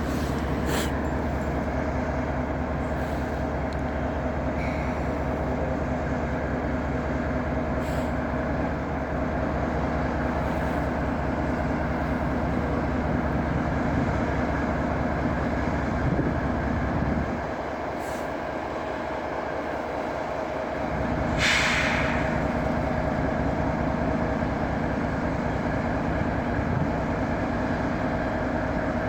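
Train rolling past with a steady low rumble. The rumble drops away for a few seconds a little past the middle, then comes back with a brief burst of hiss.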